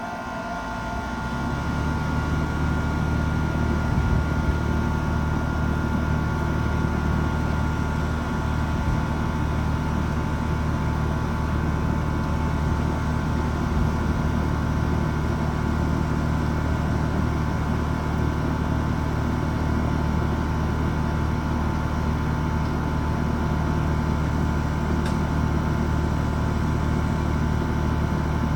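HVAC unit starting up and running: a steady low mechanical hum that builds over the first second or two, with a faint steady whine above it.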